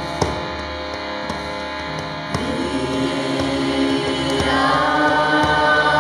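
Women's voices chanting a mantra in long held notes over a steady harmonium drone; a new sung note comes in about two and a half seconds in, and a voice slides upward a couple of seconds later.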